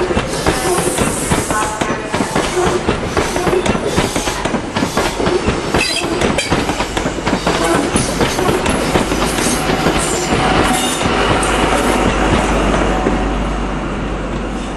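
InterCity 125 High Speed Train departing and passing close by, its coach wheels clicking rapidly over rail joints and points. Near the end the rear Class 43 diesel power car goes by, leaving a steady low engine drone that fades as the train moves away.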